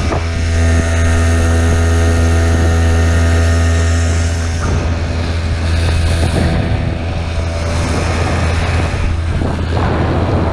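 Hangkai 6 hp two-stroke outboard motor running steadily as the boat moves, with an even droning note. About halfway through the note turns rougher and less clear.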